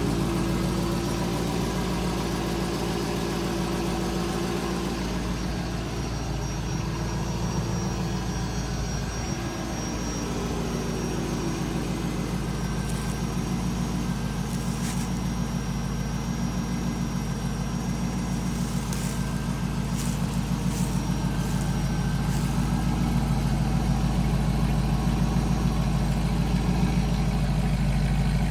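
Chevrolet C5 Corvette's V8 engine idling steadily.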